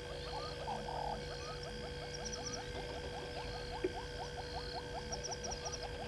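Morning ambience at a bush waterhole: animal calls in a rapid, even run of short rising notes, about five a second, over a steady high hum. A single sharp click a little before four seconds in.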